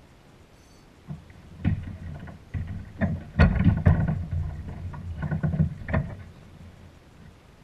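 Knocks and rattling from a fishing landing net being handled and bumped against a plastic kayak: a string of irregular clunks starting about a second in, loudest about halfway, stopping about a second and a half before the end.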